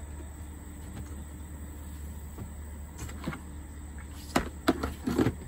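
Plastic lid of a five-gallon bucket being pried off and handled: faint scrapes about three seconds in, then three or four sharp plastic clacks in the last second and a half, over a steady low hum.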